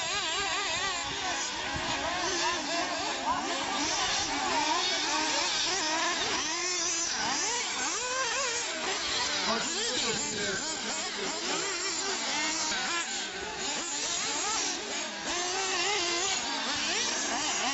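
Several radio-controlled off-road buggies racing together, their motors whining and rising and falling in pitch over and over as they speed up and slow down around the track.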